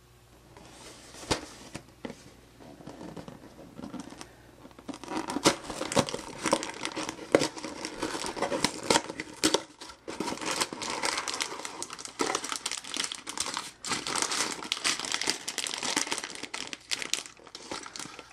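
A Lego set's cardboard box being opened by hand and its clear plastic bags of bricks handled and crinkled. A sharp snap comes about a second in, and dense, irregular crinkling starts about five seconds in and keeps on.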